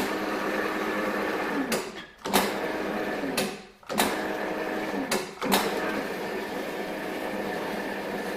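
Electric swaging machine's motor running as its swage wheels roll a female swage into a sheet metal segment. It eases off and picks back up three times, at about two, three and a half and five seconds in.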